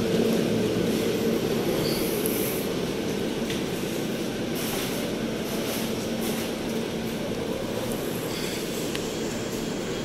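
Steady mechanical hum with a low droning tone from a KONE TranSys machine-room-less traction elevator and its shaft, easing off slightly after the first few seconds, with a few faint clicks.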